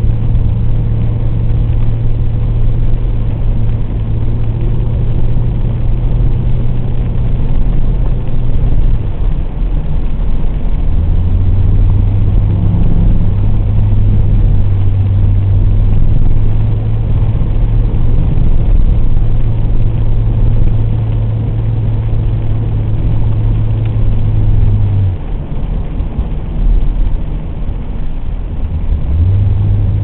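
Car engine running under steady throttle, heard from inside the cabin. Its drone drops away about nine seconds in and again near the end as the driver eases off, then picks back up.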